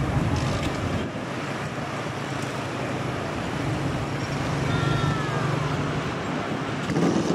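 Twin-engine jet airliner on short final, its engines making a steady broad rush of noise with a low rumble underneath and a faint falling whine near the middle.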